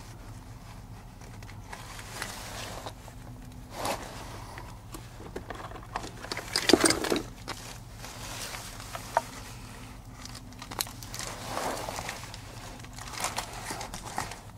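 Handling noise from fitting a rubber seal onto a plastic pipe flange and moving a Drain Master electric waste valve into place: scattered rustles and light knocks, the loudest about seven seconds in. A faint steady low hum runs underneath.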